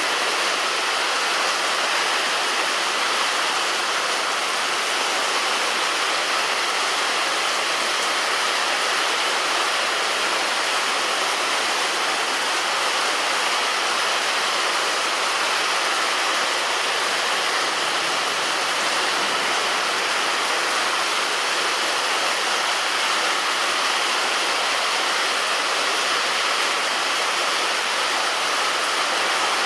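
Heavy rain falling steadily on a roof: a dense, even hiss with no let-up and no thunder.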